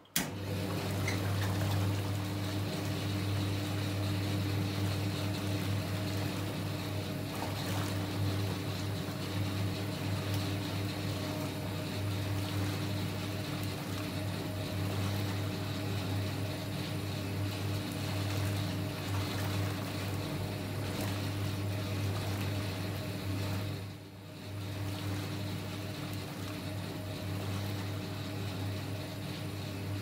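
Vintage Hoover 1321A single-tub washing machine switched on and running its pulsator: a steady low electric motor hum over hot soapy water churning and sloshing in the tub. The sound dips briefly about 24 seconds in.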